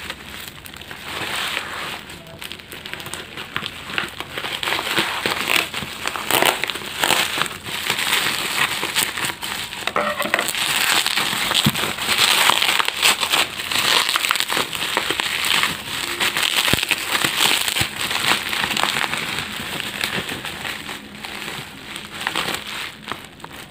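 Plastic packaging crinkling and crackling as it is handled and opened by hand, a dense run of irregular crackles.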